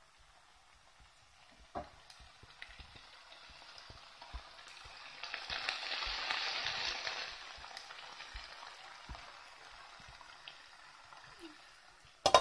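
Bolognese sauce of minced meat and vegetables sizzling and bubbling in a pan, a steady hiss that grows loudest around the middle and then eases. There is a single knock a little under two seconds in, and sharp clatters at the very end as a lid meets the pan.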